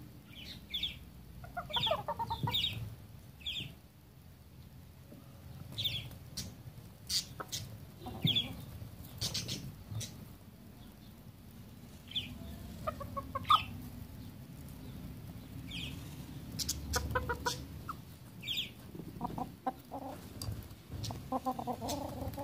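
Several roosters clucking in short runs of calls, with frequent brief high chirps and sharp clicks scattered in between.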